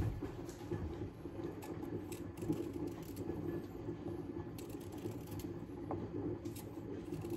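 Light scattered clicks and taps of kitchen utensils and cookware being handled, over a steady low hum.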